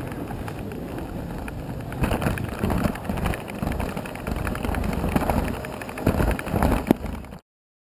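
A fischertechnik model roller coaster car rattling along its plastic track toward the lift hill, heard from a camera riding on the car. The rattle is steady at first, with louder irregular clattering from about two seconds in, and it cuts off suddenly near the end.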